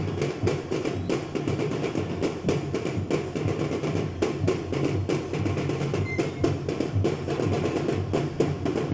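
Parade drumming: a drum section beating a fast, continuous rhythm.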